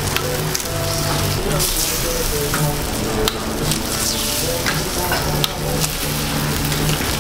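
Eggs frying on a hot flat-top griddle: a steady sizzle with sharp pops and crackles every second or so as fresh eggs land and cook.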